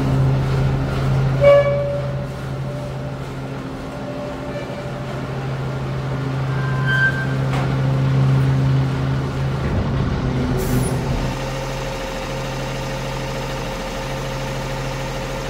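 Cummins ISL9 diesel engine of a Peterbilt 320 side-load garbage truck running with a steady drone. About ten seconds in, the drone changes and settles quieter, with a short hiss of air.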